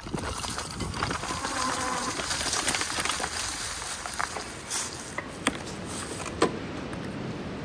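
Electric fat-tire e-bike riding over a dirt trail: a steady rough rush of tyre and wind noise, with a faint wavering whine about a second in and a few sharp knocks in the second half.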